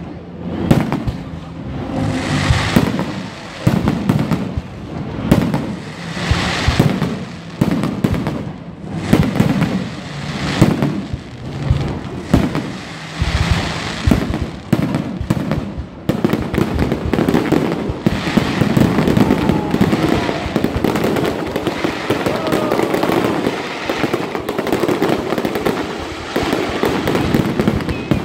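Aerial fireworks shells bursting overhead, one bang about every second at first; from about halfway on the bangs merge into a dense unbroken barrage with crackling.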